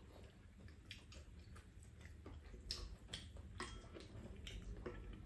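Faint eating sounds: scattered light clicks and taps of spoons and chopsticks against bowls and the pan, with some chewing.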